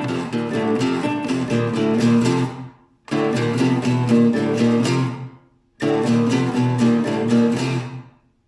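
Acoustic guitar playing quick runs of plucked notes in short phrases. Each phrase dies away into a brief silence, and new phrases start about three seconds in and again near six seconds.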